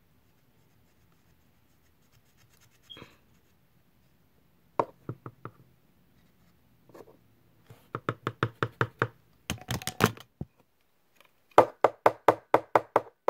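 Runs of quick, crisp clicks, about six a second, from a colored pencil being twisted in a small handheld pencil sharpener, grinding the lead into shavings. The runs come in short bursts with pauses between, the last and loudest near the end.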